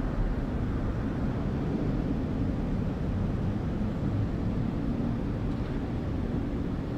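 City ambience: a steady low rumble of distant traffic.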